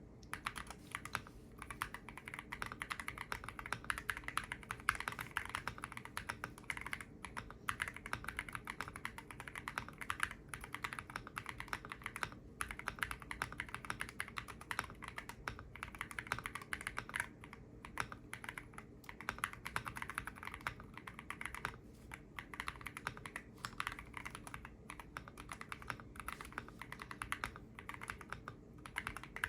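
Fast continuous typing on a modded GMK67 mechanical keyboard, a dense stream of keystrokes broken by short pauses every few seconds.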